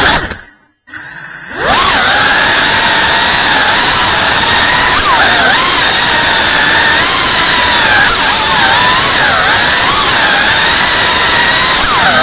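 Tiny FPV whoop drone's motors whining, the pitch wavering up and down with throttle. They cut out for a moment shortly after the start, then spin back up with a rising whine and keep running.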